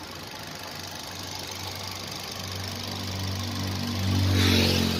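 Freshly rebuilt 1.2-litre Kappa VTVT petrol engine of a Hyundai Grand i10 idling steadily, heard close up in the open engine bay. Its hum grows louder over the second half, and a short rush of noise comes near the end.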